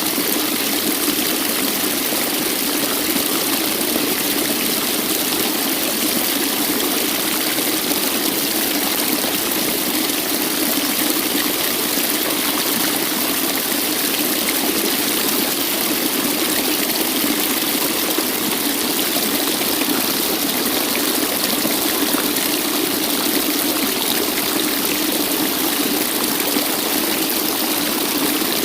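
Waterfall: water falling and rushing steadily, an even, unbroken rush with no single splashes standing out.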